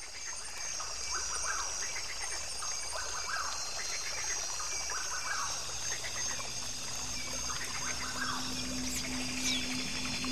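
Natural ambience fading in: a steady high insect drone, with short animal calls repeating every second or two. A low steady hum joins about six seconds in.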